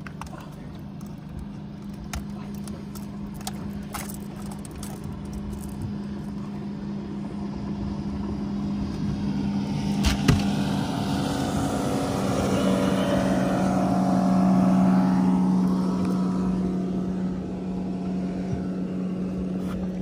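Outboard motor running steadily at trolling speed, while a second motorboat's engine swells up, passes and fades away in the second half. There is a sharp knock about halfway through.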